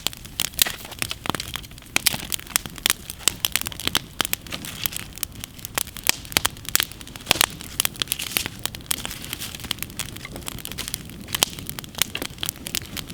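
Wood fire crackling, with many irregular sharp pops and snaps over a low hiss as freshly added dry sticks catch.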